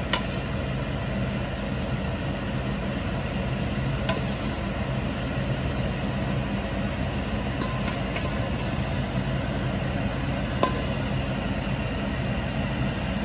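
A stainless steel ladle clinks a few times against a stainless bowl and stockpot as boiled eggs are scooped into a simmering braise. A steady fan-like hum runs underneath.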